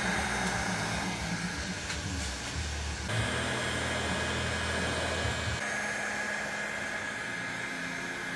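Steady whirring noise with a low hum, like a small blower motor running. Its tone shifts abruptly about three seconds in and again past five seconds.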